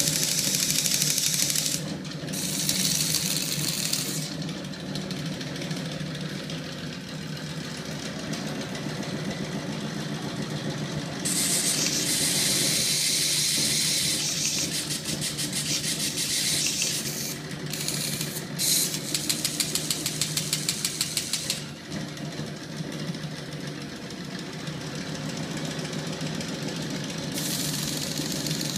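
Screwdriver shaft held against a spinning steel flywheel drum, scraping in bursts of harsh hiss that in one stretch break into a fast run of ticks. Under it the electric-motor-driven rig hums steadily.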